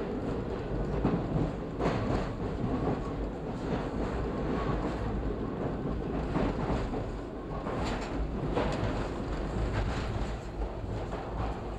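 Toronto subway train running through a tunnel: a continuous rumble of wheels on rail, with a few sharp clacks, about two seconds in and twice more past the middle.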